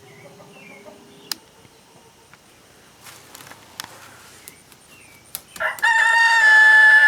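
A rooster crows once, loud, starting about five and a half seconds in and holding a long, steady note. Before it there are only faint scattered clicks.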